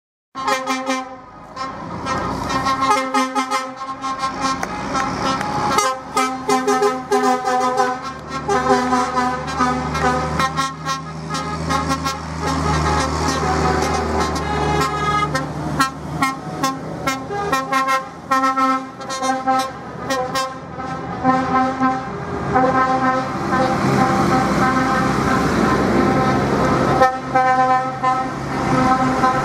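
Truck and tractor horns sounding again and again, many overlapping toots of different pitches, over the running diesel engines of a slow line of lorries, tractors and other working vehicles driving past.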